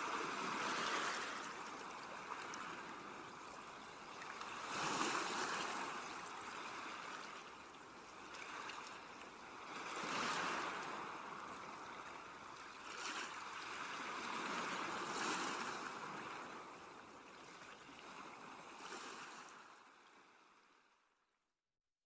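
Sea waves washing onto a shore, the surf swelling and falling back about every five seconds, then fading out to silence near the end.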